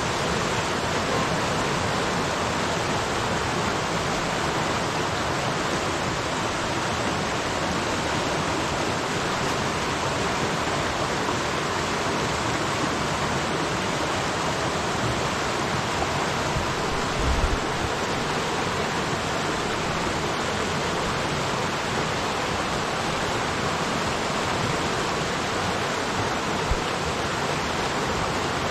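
Big, fast river rushing steadily, with two brief low thumps, one about two thirds of the way through and one near the end.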